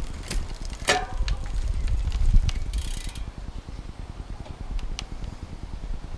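Bicycle drivetrain worked by hand in a repair stand: the crank is turned to run the newly joined chain over the chainring and cassette, with a few sharp metallic clicks and a brief hiss about three seconds in.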